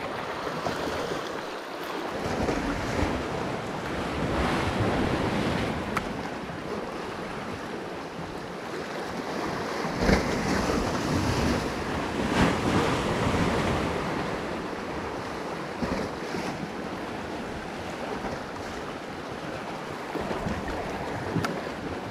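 Sea surf washing against a rocky shoreline, with wind buffeting the microphone; the wash surges louder a couple of times about halfway through.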